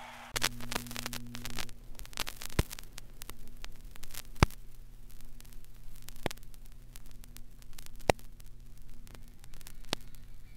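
Scattered sharp clicks and crackles over a steady low electrical hum and faint hiss, with no music playing.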